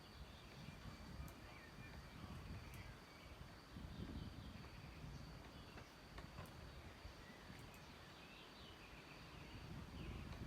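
Quiet outdoor ambience: faint bird chirps over a low rumble and a thin, steady high-pitched insect-like tone.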